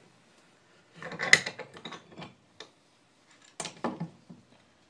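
Metal clinking and clattering as the cast-iron sheaves of a John Deere variator are handled in a bench vise. There are two short bursts of knocks and clicks, the louder about a second in and another about three and a half seconds in, with a lone tick between them.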